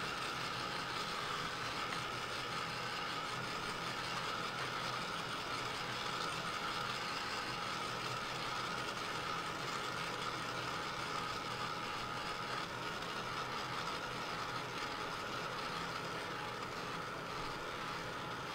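Handheld craft heat tool running steadily, an even whir with a constant whine, drying freshly coloured ink on paper.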